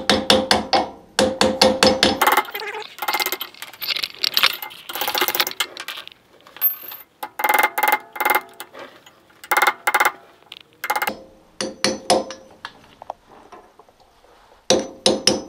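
Hammer striking a steel driver to seat a tight new seal on the front wheel spindle of a 1955 IH 300 Utility tractor: quick runs of ringing metal-on-metal taps with short pauses between.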